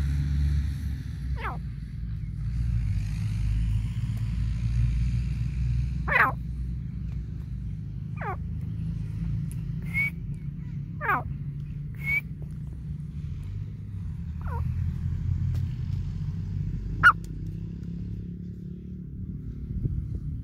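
Grey francolin giving about eight short, sharp single calls spread a few seconds apart, some sweeping quickly in pitch, over a steady low rumble.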